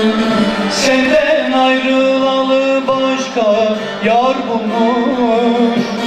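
Live Turkish folk music: a bağlama playing with a male voice singing long held notes that waver and bend in pitch.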